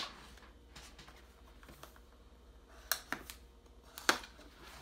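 Cardboard card-game kit boxes being handled and moved by hand: a sharp tap at the start, then a quiet stretch, then a few light clicks and taps from about three seconds in, the loudest about four seconds in.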